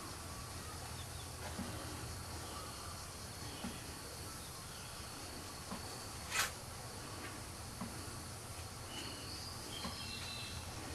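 Quiet rural ambience with faint birdsong, a few short high chirps near the end, and one sharp click a little past halfway.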